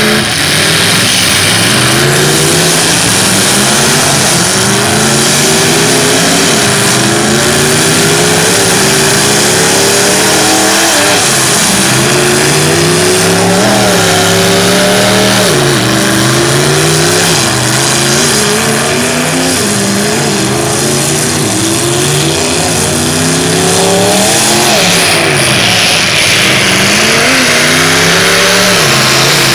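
Engines of several demolition derby cars revving hard at once, their pitch climbing and dropping over and over.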